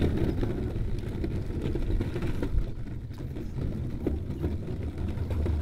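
Longboard's 6-inch wheels rolling across the planks of a wooden footbridge: a steady, uneven low rumble.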